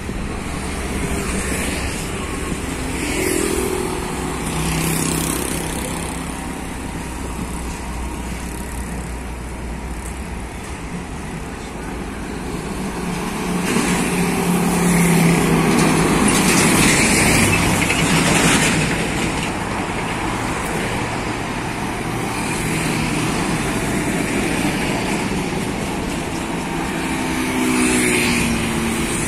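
Highway traffic driving past: motorcycle engines and heavy trucks going by over a continuous low rumble of engines and tyres, the loudest pass coming about halfway through.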